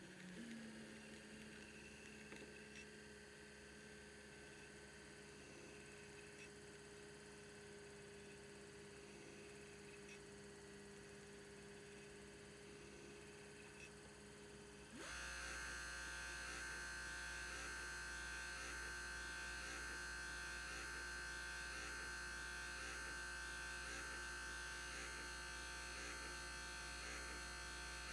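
Mercedes W124 Brose window regulator motor running on the bench, driving its large plastic gear. It gives a faint steady hum, then about halfway through steps up suddenly into a louder buzz with a faint regular beat. The noise comes from the plastic gear, which has shrunk and distorted out of round after years in grease.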